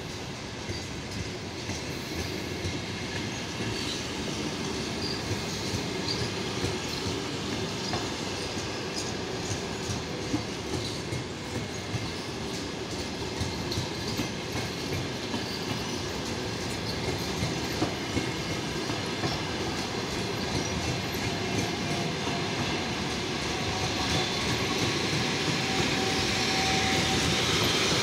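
Passenger coaches of a departing train rolling past, wheels clacking over the rail joints and getting gradually louder as the train gathers speed, with a faint wheel squeal near the end.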